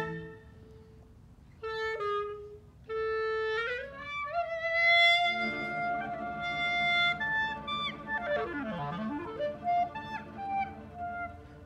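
A clarinet plays a solo tango phrase: two held notes with short pauses, then a slide up into a long held note. Bowed strings and a double bass then join in, and about eight seconds in a wide slide swoops down and back up.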